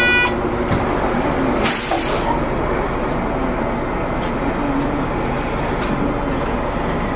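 City bus running with a steady engine and road rumble, its engine pitch rising and falling. A short burst of compressed air hisses out about two seconds in.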